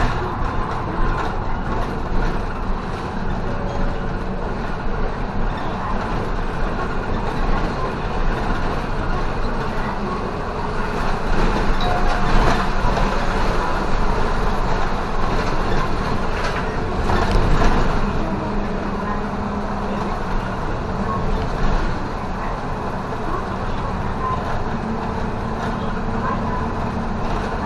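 Running noise inside a Tokyo city bus under way: the bus's engine and the tyres on the road make a steady drone that swells louder twice, about twelve and seventeen seconds in.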